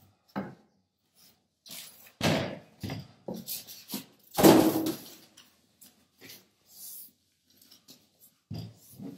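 Foam packing end caps being pulled off a boxed DJ mixer and tossed aside: a string of separate knocks and rubs of foam, the loudest about halfway through, then a plastic bag rustling as the wrapped mixer is lifted.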